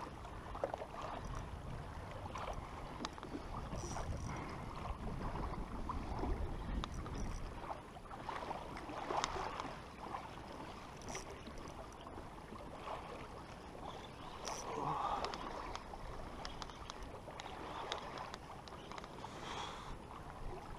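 Ocean water sloshing and lapping irregularly against the hull of a Hobie Revo pedal kayak riding a swell, with a low rumble in the first several seconds.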